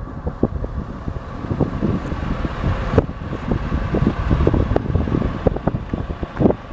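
Heavy wind buffeting the microphone in irregular gusts, over the steady running of the truck's Cummins 10-litre inline-six diesel engine.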